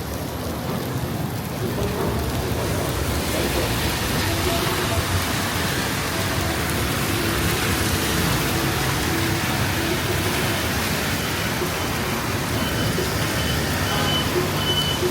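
Rain falling steadily on a city street, the hiss growing louder about three seconds in, over a low rumble of traffic.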